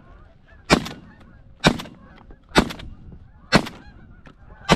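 Shotgun blasts from hunters firing at a passing flock of geese: five loud shots about a second apart, with a couple of fainter shots and geese honking between them.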